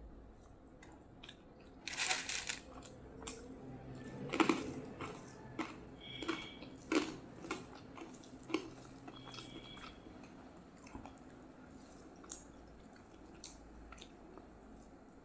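Close-up eating sounds of a person eating rice and curry: wet chewing and squishing, with scattered clicks and brief clinks against the plate. The loudest bursts come about two seconds in and again near the middle.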